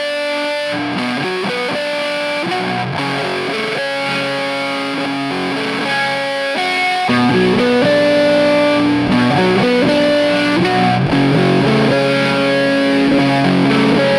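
Instrumental intro of a song, led by a guitar with distortion playing held notes. A deeper bass part joins about halfway through and the music gets a little louder.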